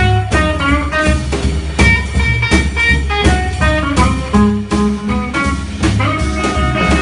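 Live rock 'n' roll band playing an instrumental passage: electric guitar picking quick single notes over a drum kit.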